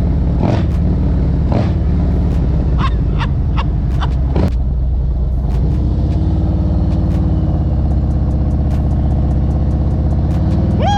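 Harley-Davidson CVO motorcycle's V-twin engine running under way, with several sharp pops in the first few seconds, then a steadier engine note that rises a little in pitch about six seconds in.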